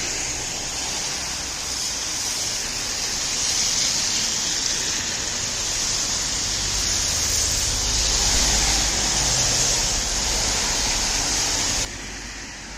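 Road traffic ambience: a steady hiss over a low rumble, swelling a little as vehicles pass. Near the end it cuts off abruptly to a quieter, duller hiss.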